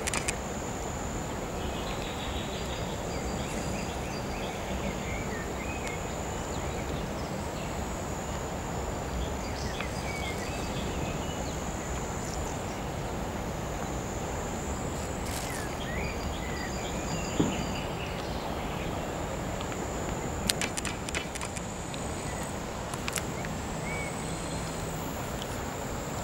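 Outdoor riverside ambience: a continuous high insect drone and scattered bird chirps over a steady background hiss. There are a couple of short sharp knocks about two-thirds of the way through.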